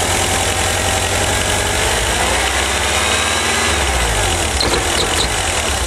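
A 1985 VW Vanagon's 1.9-litre water-cooled flat-four (wbx) idling as the throttle is eased open slowly; the engine note wavers rather than picking up, and near the end it starts to falter. This is the stall-on-throttle fault that shows with the vacuum advance connected.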